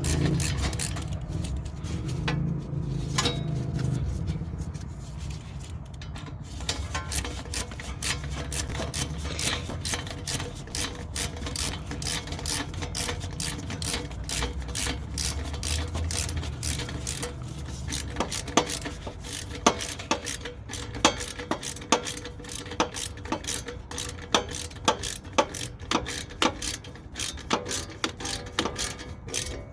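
Hand-tool work on a car's metal engine-bay heat shield: rubbing and scraping with many small clicks, then sharp ratchet-like clicks about once or twice a second in the second half.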